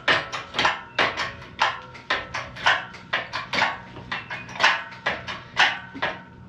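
Repeated hammer blows on metal: a steady run of sharp knocks about two a second, the louder ones about once a second, each with a brief metallic ring.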